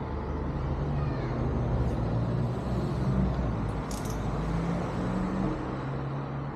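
A motor running with a steady low hum whose pitch shifts up and down a few times, with a couple of sharp clicks about two and four seconds in.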